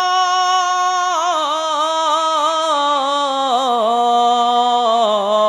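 A man's solo voice singing a Bangla devotional song, drawing out one syllable. He holds a high note steady for about a second, then lets it wind down in pitch through a long run of small ornamental turns.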